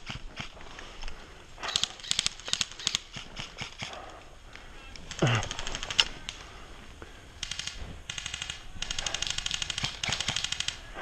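Airsoft electric guns firing full-auto bursts of rapid, evenly spaced clicks. There is a cluster of shots early on, then several bursts in the second half, the longest lasting about two seconds near the end.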